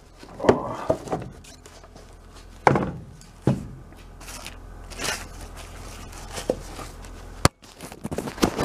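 Plastic bag rustling and crinkling as a tablet is pulled out of it, with scattered knocks and taps from handling. A single sharp click near the end.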